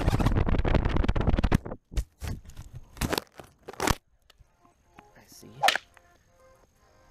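A small FPV quadcopter crashing and tumbling: a dense, fast clatter for about a second and a half, then half a dozen separate knocks, going quiet about four seconds in, with one sharp click near six seconds. The crash came from a motor's retaining clip letting loose.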